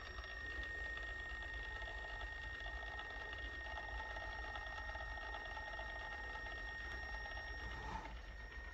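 Milwaukee M12 cordless caulk gun's small brushed motor running steadily at its lowest speed setting, driving the plunger to push out a thin bead of caulk. It stops a little before the end.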